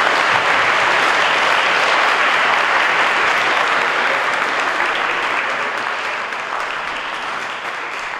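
A large audience applauding and cheering, strongest at first and slowly dying down over the last few seconds.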